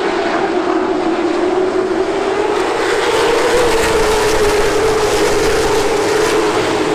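Late model stock car's V8 engine running hard at high revs, its pitch steady with a slight rise and fall midway.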